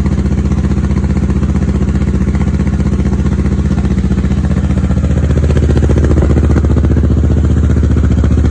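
2016 Kawasaki Ninja 650's parallel-twin engine idling through a Two Brothers Silver Series carbon full exhaust, warming up after its first start with the new system. An even, steady exhaust pulse that gets slightly louder about six seconds in.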